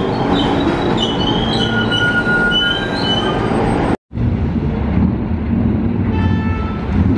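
New York City subway train running with its wheels squealing in high, shifting tones over steady rumble. About four seconds in the sound drops out for a split second, then train rumble picks up again with a brief high tone near the end.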